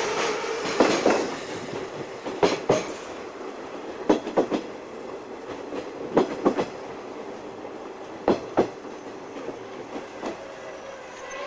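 Wheels of a 50-series passenger coach clicking over rail joints, a pair of clicks about every two seconds over a steady running rumble that slowly gets quieter. A faint wheel squeal sets in near the end.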